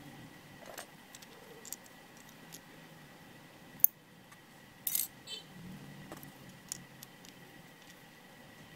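Hands handling a plastic crankbait lure and fishing line, making small scattered clicks. There is one sharp click about four seconds in as nail clippers snip the line, then a brief clatter about a second later.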